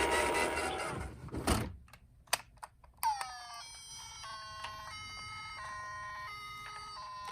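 Toy ambulance electronic sirens. A loud jumble of sound fades out over the first second and a half, a few light knocks follow, and about three seconds in one toy's electronic siren starts, stepping between tones.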